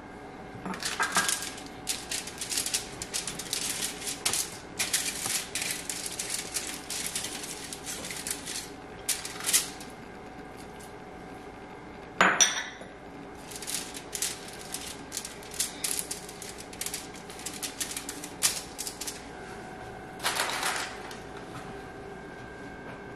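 Aluminium foil crinkling and crackling in quick bursts as raw pork rolls are handled and pressed down on a foil-lined tray. One sharp clink with a short ring about halfway through.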